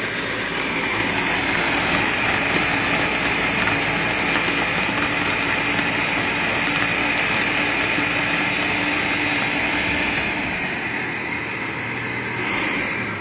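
Ninja countertop blender running at full speed, churning a banana and almond-milk smoothie in its plastic pitcher: a loud, steady motor whir. Near the end it swells briefly, then starts to wind down as the motor is switched off.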